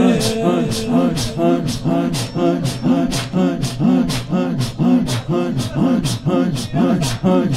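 Mourners beating their chests (matam) in a fast, even rhythm of sharp slaps. Over the beat runs a chanted vocal line that rises and falls with each stroke.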